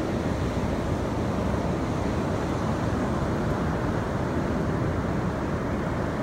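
Wind buffeting the microphone, a steady rushing noise heaviest in the low end, with ocean surf beneath it.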